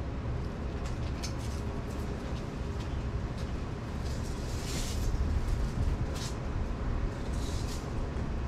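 Pressure washer engine running steadily with a low rumble, with short hissing surges of the spray now and then.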